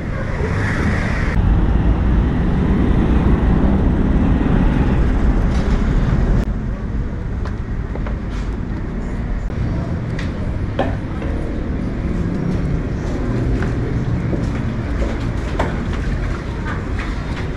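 Street traffic noise, running steadily with a heavy low rumble, dropping somewhat in level about six seconds in.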